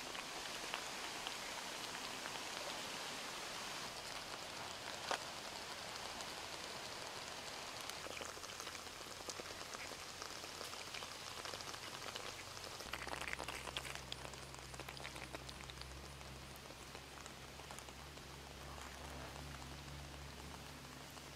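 Faint, fine wet crackling and patter of shallow muddy water with scattered small clicks, as mud crabs move about and work their claws in it. A low steady hum comes in about two-thirds of the way through.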